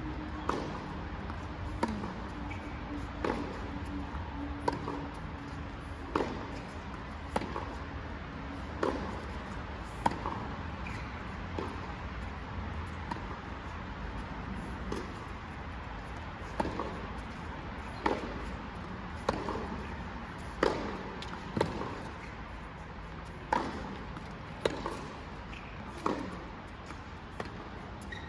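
Tennis rally: the ball struck hard by racket strings back and forth about every second and a half, with softer knocks of the ball bouncing on the court between shots.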